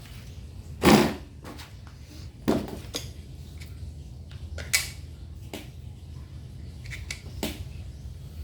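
A few sharp knocks and clunks of parts and tools being handled, the loudest about a second in, over a steady low hum.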